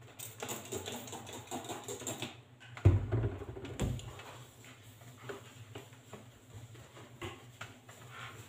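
Household cleaning and handling noises: rustling and light clicks and knocks, with a heavier knock about three seconds in and another about a second later, and a cloth wiping the kitchen counter near the end.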